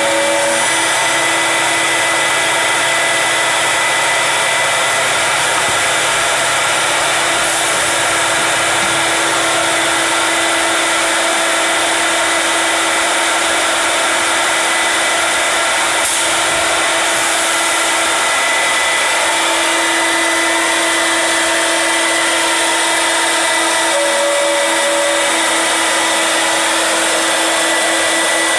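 The high-speed router spindle of a CNC stair machine cutting through three stacked 2x10 boards. It makes a steady whine over a dense rushing noise that holds an even level throughout.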